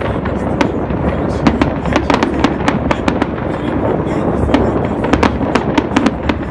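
Fireworks going off in quick succession: many sharp, irregular cracks and pops over a continuous rumble of bursts.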